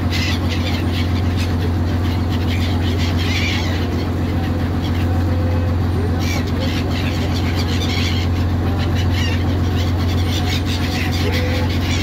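Boat engine running at a steady low drone.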